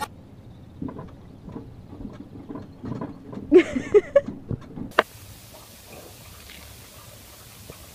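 A person's laughter in several short bursts about three and a half seconds in, after a few faint taps. A single sharp click follows, then a faint steady hiss.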